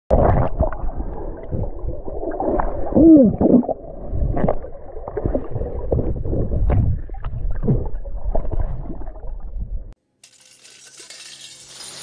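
Muffled water gurgling and sloshing with scattered knocks and clicks. It cuts off suddenly about ten seconds in, followed by a faint steady hiss.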